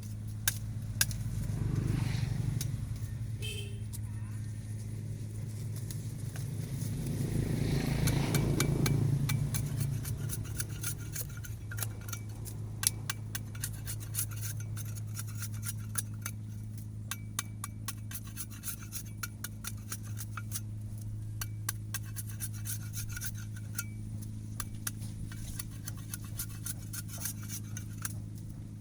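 Knife working on sugarcane: many small quick scraping clicks as the rind is shaved off, over a steady low hum, with two louder rushing swells in the first ten seconds.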